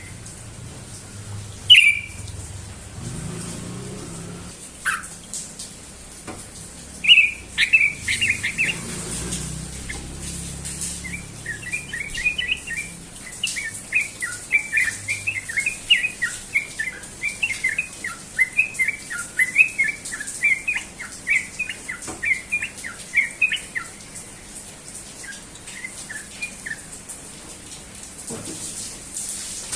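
Yellow-vented bulbul (trucukan) singing: a sharp call and a falling note early on, then a long run of quick, bubbling chattering notes, the rapid 'ropel' song.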